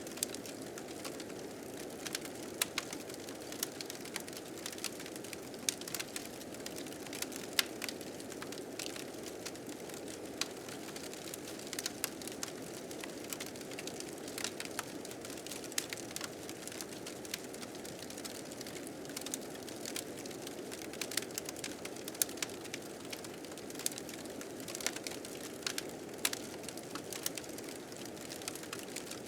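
Wood fire crackling with many irregular sharp pops over a steady rush of blizzard wind.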